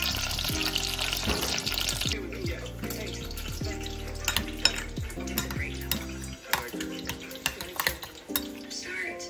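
Soft background music with kitchen sounds over it: a steady hiss that stops about two seconds in, then scattered clinks and taps of dishes and utensils.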